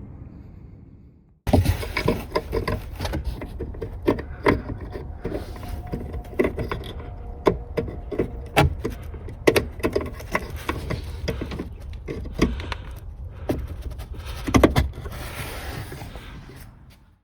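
Irregular clicks, knocks and clatters, many in quick succession, like objects being handled and set down.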